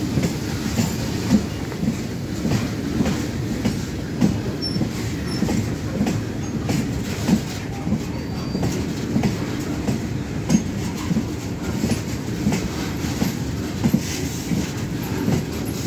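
Fully loaded Indian Railways BOXN open freight wagons rolling past at slow speed: a steady rumble of steel wheels on rail, with repeated knocks as the wheels cross rail joints.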